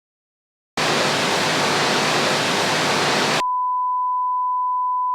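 Electronic test signals: a burst of white noise lasting about two and a half seconds, which cuts off abruptly into a steady, single-pitch beep tone that holds unchanged.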